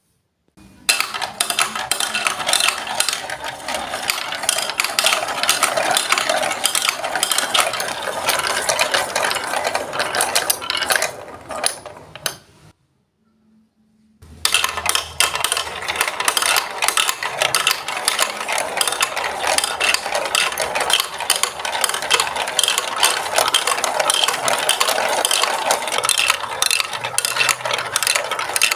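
Marbles rolling and clattering down a Lego Duplo block track, a dense, continuous rattle of small clicks. It cuts off suddenly about halfway through, falls silent for a second and a half, then starts again just as dense.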